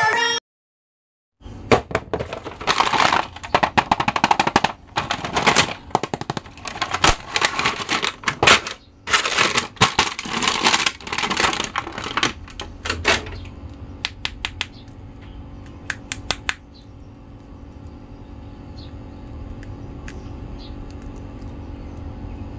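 Clear plastic packaging bag crinkling and rustling in dense bursts as an action figure is pulled out of it. After about thirteen seconds this gives way to quieter handling of the plastic figure, a few light clicks over a low steady hum.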